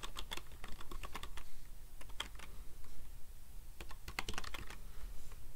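Typing on a computer keyboard: quick, irregular runs of key clicks as a hostname is entered.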